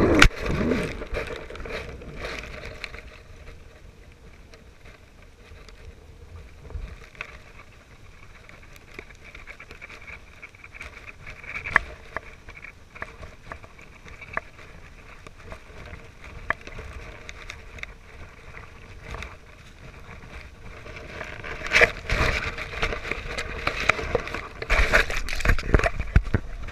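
Grass and leaves rustling and brushing against a GoPro's housing as it lies on the ground, with scattered small clicks. Near the end the rustling and handling noise get much louder as the camera is picked up.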